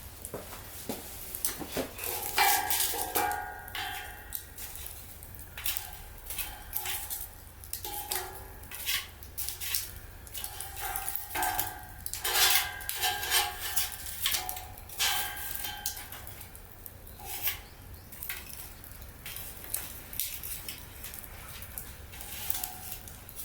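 Metal objects clinking and clattering, a run of sharp knocks, many with a brief metallic ring.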